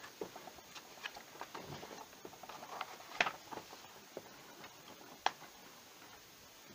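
Glossy magazine pages handled and turned by hand: scattered light rustles and crinkles of paper, with two sharper crackles about three and five seconds in.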